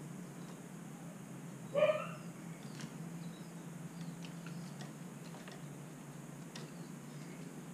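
A single short, loud animal call about two seconds in, then scattered light taps and clicks as a kitten's paws and claws scramble onto the top of a wooden birdcage.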